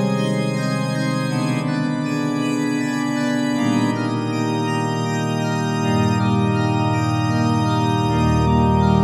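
Background music: sustained organ chords, with the bass moving to a new note about every two seconds.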